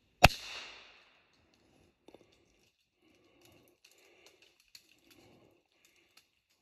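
A single sharp rifle shot about a quarter second in, its report dying away over most of a second. Faint rustling and a few small clicks follow.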